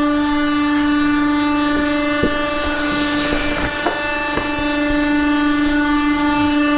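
Steady electric hum of a swing-arm leather clicker press's motor left running. About three seconds in, a leather hide is dragged and flapped on the bench with a rustle, with a few light knocks around it.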